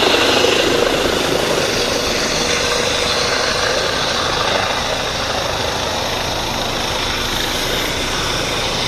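Helicopter's rotor and turbine noise, steady with a fast low beat, easing off slightly after the first few seconds.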